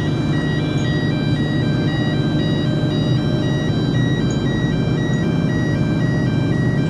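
A tinkling electronic jingle of short high notes repeating about twice a second, over a steady low drone.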